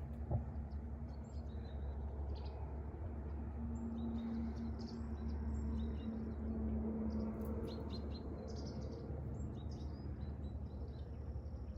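Small birds chirping, with short high calls scattered throughout, over a steady low rumble.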